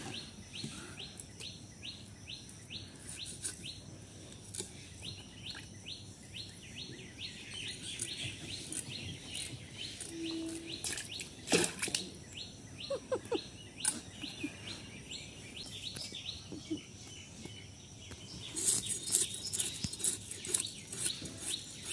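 Small birds chirping in quick repeated notes, with scraping strokes as live spotted snakehead (lata fish) are scaled against the curved blade of a bonti. The scraping comes thickest near the end.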